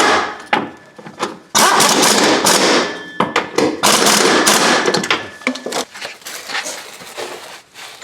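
Impact wrench hammering in two long bursts, about a second and a half in and again near the middle, running the rear shock absorber's mounting nuts on, with shorter bursts and clanks after. The nuts are run in snug, not torqued.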